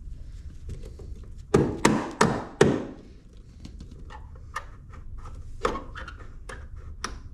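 Four sharp knocks in quick succession about a second and a half in, followed by scattered lighter taps and clicks: parts and tools being handled while rec deck supports are fitted.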